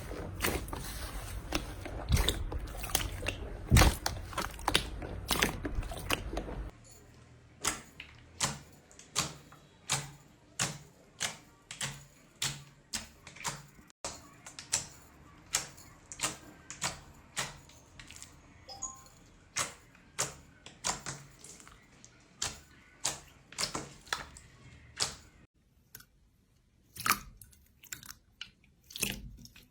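Slime being squished and pressed by hand: a dense crackle for the first several seconds, then a regular run of separate sticky pops about two a second, thinning out near the end.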